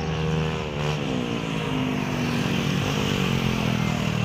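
Small scooter engines running. Their pitch falls about a second in, then rises and falls as the throttle changes.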